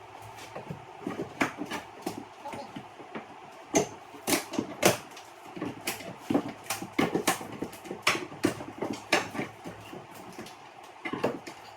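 Irregular knocks and clicks of wood being handled, coming in quick clusters of several a second, busiest in the middle stretch.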